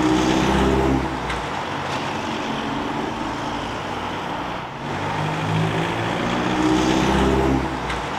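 Road traffic on a main road: steady tyre noise with two louder vehicles driving past, one at the very start and another near the end.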